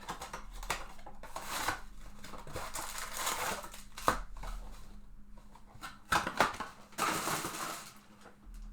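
Trading card packaging being handled and opened: rustling and crinkling wrappers and cardboard in several swells, with a few sharp knocks.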